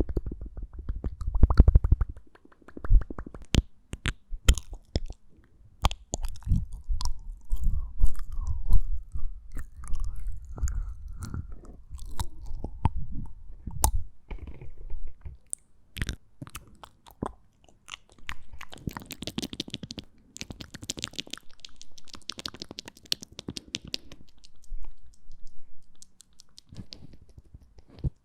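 Close-miked ASMR mouth sounds: rapid wet clicks, lip smacks and tongue pops. In the second half, stretches of soft breathy hiss come in among the clicks.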